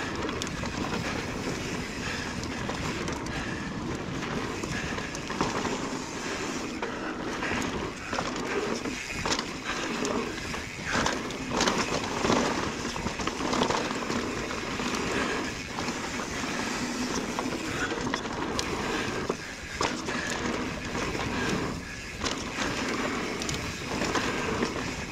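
Mountain bike rolling fast down a dirt and rocky trail: a steady rush of tyres on dirt and loose stones, with frequent clicks and knocks as the bike rattles over bumps and rocks.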